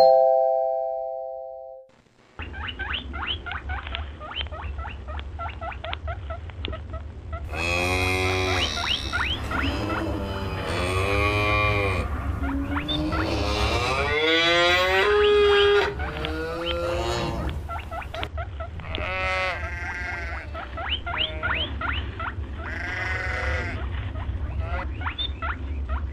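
A notification chime rings at the start and fades over about two seconds. Then, over a steady low hum and rapid ticking, a farm animal calls again and again from about seven seconds in, in long wavering cries that slide up and down in pitch.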